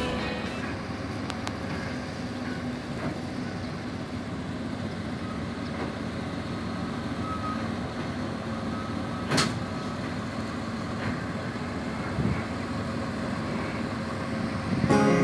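Diesel engine of a truck-mounted lattice-boom crane running steadily while it lowers a forklift on its hook, with a single sharp knock about nine seconds in.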